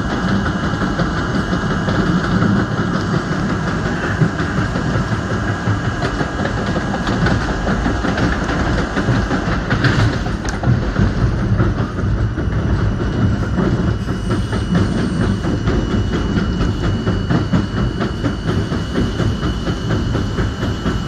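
An R32 subway train running at speed, heard from inside the car: a steady rumble with wheels rattling over the rails. There is a sharp click about ten seconds in, and a thin steady high whine joins a couple of seconds later.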